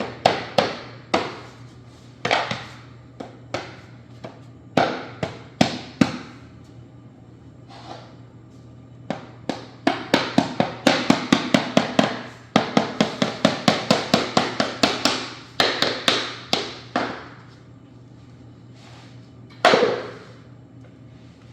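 A new laminate floor plank being tapped into place: scattered sharp knocks, then a fast run of about five even taps a second for several seconds, and one more hard knock near the end.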